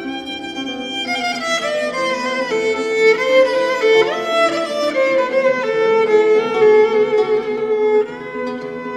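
Background music: a violin playing a flowing melody, with some sliding notes, over other strings.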